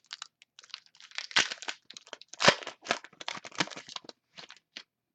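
Plastic wrapper of a trading-card pack crinkling and tearing in irregular crackles as the pack is opened.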